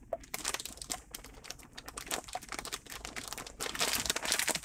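Wire whisk beating a liquid egg-and-cream mixture in a plastic mixing bowl: a rapid run of light clicks and wet splashes, getting louder late on.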